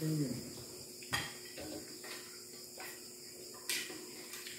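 Plates, spoons and a serving pot clinking now and then as people eat at a table: a few scattered sharp clicks, the sharpest about a second in and again near the end.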